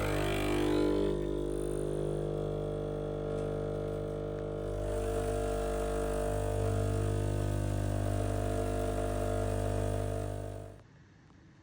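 Sage espresso machine's pump humming steadily as it runs, then shutting off about a second before the end.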